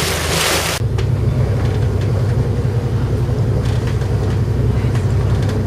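Wind rushing on the microphone for under a second, then it stops abruptly and the steady low drone of a sailing ship's engine takes over, heard on deck.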